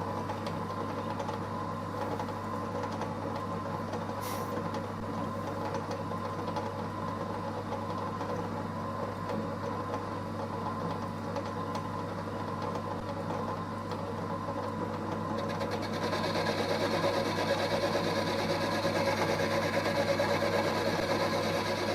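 Small EMCO Compact 5 benchtop lathe running with a steady motor hum and whine while the tool takes a light cut off the workpiece. About three-quarters of the way through, a louder, hissier cutting sound joins.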